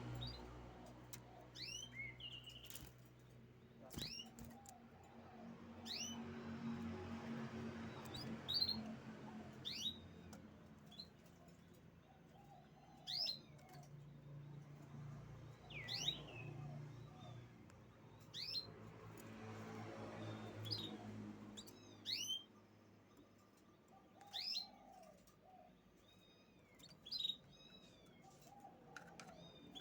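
Canary giving short chirp calls every second or few, each a quick sharp sweep in pitch to a high note, with softer low twitters between.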